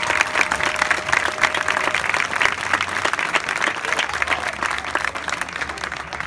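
Large stadium crowd applauding, a dense steady clatter of many hands that thins out near the end. A faint held tone sounds under it in the first two seconds.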